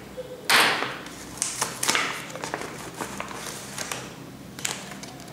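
Paper envelope and packaging rustling and crinkling as they are handled and pulled from a cardboard box, with the loudest rustle about half a second in, then a run of short crackles and light taps.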